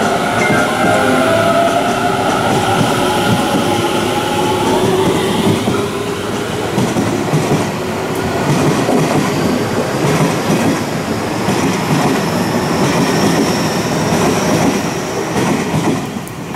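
A Tobu Tojo Line electric commuter train pulling out of the platform. Its motor whine rises in pitch over the first few seconds as it accelerates, then the cars run past with wheel noise over the rails until the last car clears and the sound drops away near the end.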